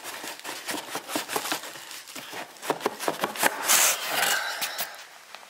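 Cardboard box being handled and opened: cardboard scraping and rubbing, with scattered taps and rustles, loudest about three and a half seconds in.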